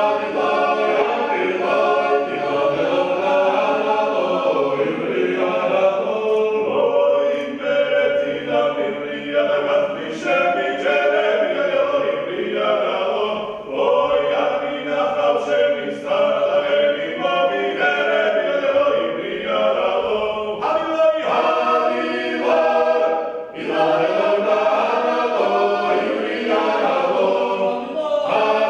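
Choir singing unaccompanied in several voice parts, a Georgian folk song, in sustained phrases with brief breaths between them about two-thirds and four-fifths of the way through.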